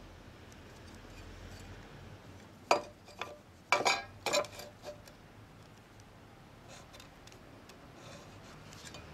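A few sharp metallic clinks and knocks about three to five seconds in, as an aluminium speed square is set down against a steel angle and wooden beam, followed by faint light ticks.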